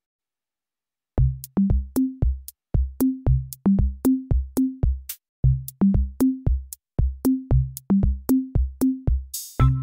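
Electronic background music: a drum-machine beat of kick drums with short bass notes and sharp clicks, coming in about a second in after silence. A cymbal-like crash shortly before the end leads into a fuller pattern.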